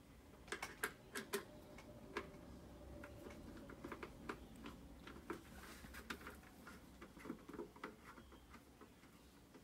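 Faint, irregular small clicks and ticks of a Phillips screwdriver being turned by hand to back a side screw out of a football helmet's face mask, with light knocks of the face mask against the plastic shell.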